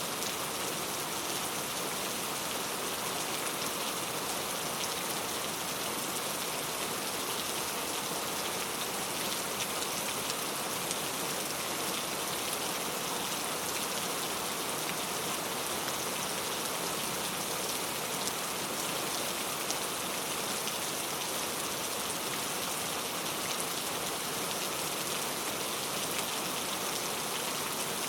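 Heavy rain falling steadily, an even hiss with fine pattering of drops and no thunder.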